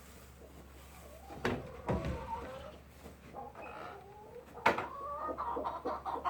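Chickens clucking with short wavering calls, quickening into a rapid run of clucks near the end, with a few sharp knocks, the loudest about four and a half seconds in.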